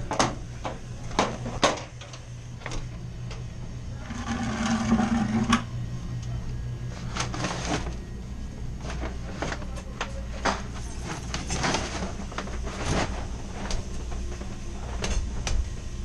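Scattered metal clicks and knocks from hands working water valves and copper piping on a water-cooled air conditioning unit, over a steady low hum. About four seconds in, a brief hiss with a low buzzing tone lasts about a second and a half.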